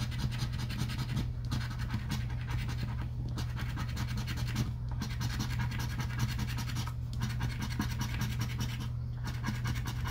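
Scratching the coating off a paper lottery scratch-off ticket with a small round scraper: rapid back-and-forth rubbing strokes with short pauses now and then, over a steady low hum.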